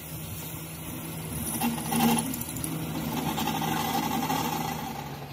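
Workshop machine running steadily with a constant low hum, swelling briefly about two seconds in.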